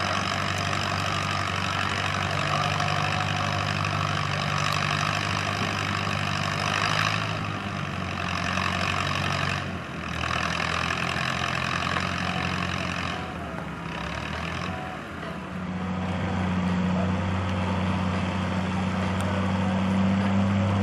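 Farm tractor engine running steadily under throttle, easing off briefly about ten seconds in and again around fourteen seconds, then picking back up.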